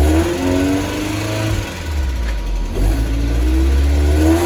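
1992 Mazda Miata's 1.6-litre four-cylinder engine running in gear with the car on a lift and the rear wheels spinning, the revs climbing and dropping back a couple of times as it is shifted up. It drives the freshly installed replacement limited-slip differential, which now runs without the earlier knocking.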